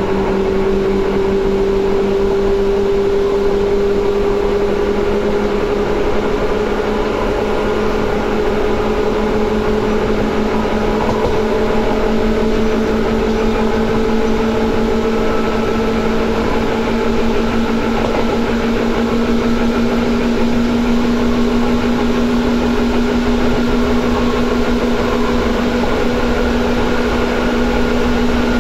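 Seibu 2000 series electric train running: steady motor and gear hum over rumbling running noise, its pitch rising slowly as the train gathers speed.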